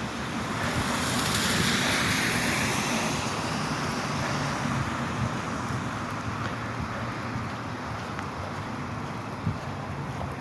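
Steady hiss of rain falling, with a vehicle's tyres swishing past on the wet road. The swish swells over the first few seconds and then fades back into the rain.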